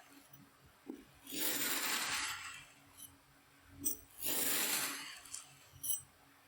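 Kinetic sand being crushed and cut: two soft, crunching hisses about a second long each, one starting about a second and a half in and one just past four seconds, with a few small clicks and taps between them.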